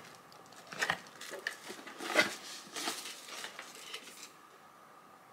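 A white cardboard mailer box being handled and opened, with a string of short rustles, taps and light clicks, the loudest about two seconds in, dying away after about four seconds.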